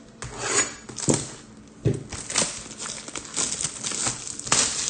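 Clear plastic shrink-wrap being torn and peeled off a sealed trading-card box, crinkling in irregular bursts that grow denser after about two seconds.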